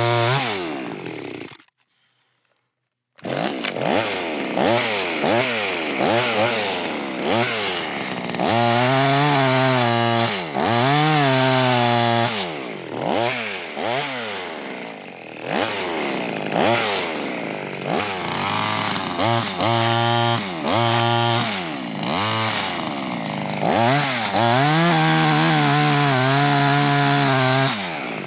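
Small two-stroke clone chainsaw running hard, its engine revving up and down again and again between stretches held at full throttle. The sound drops out suddenly for about a second and a half near the start.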